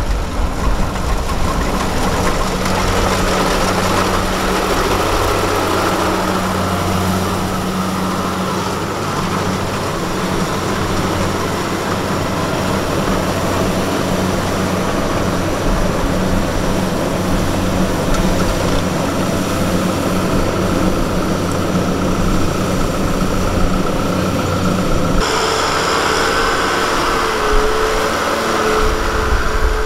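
Engine of farm machinery running steadily. The sound changes abruptly near the end, to a higher-pitched engine note.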